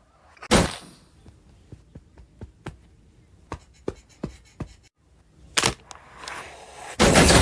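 Cartoon sound effects of someone prying at a van's fuel-tank flap with a long lever: a loud thud about half a second in, a run of light clicks and taps, another hard hit, then a loud noisy burst near the end.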